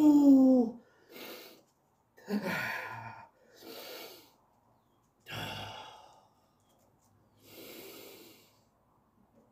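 A man breathing hard and groaning while sitting in ice-cold plunge water at about minus one degree. A loud groan falling in pitch comes first, then slow, heavy breaths every second or two, with one more voiced groan about two and a half seconds in.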